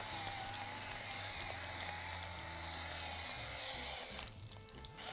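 Chicken skin frying in its own rendered fat in a pan, a steady sizzle that thins out about four seconds in.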